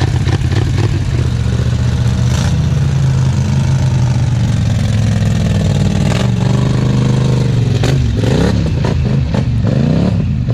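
ATV engines running with a steady low drone. From about six seconds in, an engine's pitch dips and then rises and falls several times as it is revved and driven.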